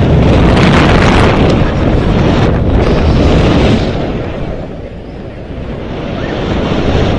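Loud wind rushing over the microphone of a BASE jumper's camera as he falls through the air, easing for a moment a little past halfway, then building again.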